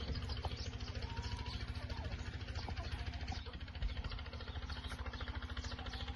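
A small engine idling steadily with a rapid, even beat, with a few short faint bird chirps above it.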